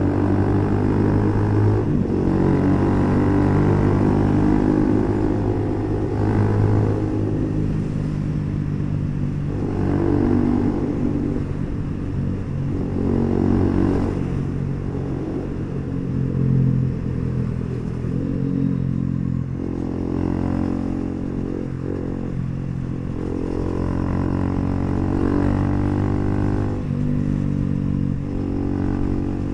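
Bajaj Pulsar NS400Z's 373 cc single-cylinder engine running through an HP Corse aftermarket exhaust while ridden, its revs rising and falling through the gears. For about the first twenty seconds it echoes off tunnel walls, then it is heard in the open.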